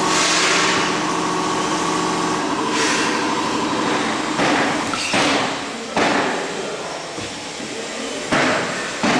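Liquid filling and screw-capping machine running. A steady hum with several pitches lasts for about the first two and a half seconds. After that its air-driven mechanism makes a series of sharp clunks, each with a short hiss, at irregular intervals of a second or so.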